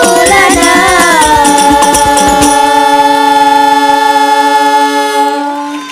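Hadroh ensemble: young voices singing sholawat in unison over rebana frame drums. The drums stop about two and a half seconds in, and the voices hold a long final note that fades out near the end.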